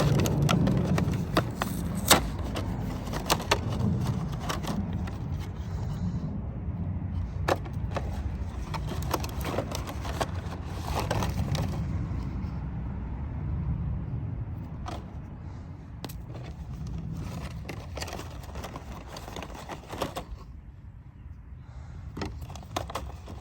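Hard toys being handled on a surface: scattered clicks, knocks and scrapes over a low steady rumble, thinning out in the last few seconds.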